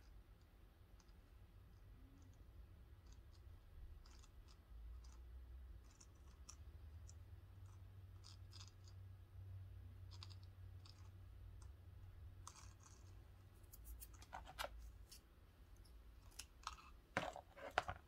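Faint handling noise of craft work: scattered small clicks and scratches as thin ribbon is wrapped around beads, with a cluster of louder clicks near the end.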